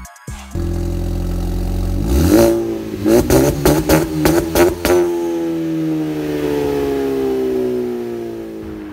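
Big-turbo Ford Focus's turbocharged four-cylinder engine, heard through the exhaust, idling and then revved. The revs rise about two seconds in, a rapid series of sharp cracks follows for about two seconds, and then the revs fall slowly back down.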